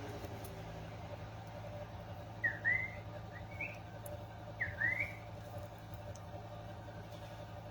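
Three short groups of quick whistled chirps, each a pair of notes that sweep up and down, over a steady low hum.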